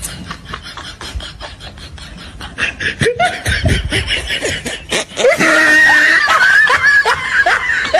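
People laughing: a stream of quick ha-ha pulses that swells into loud, sustained laughter about five seconds in.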